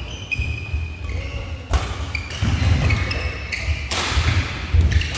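Badminton court noise: athletic shoes squeaking in short chirps on the court mat over low footfalls, with three sharp knocks about two, four and five seconds in.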